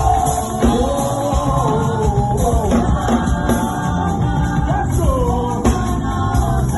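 Live gospel praise music in raw, unmixed sound: voices singing over a band of drum kit, piano and bass guitar.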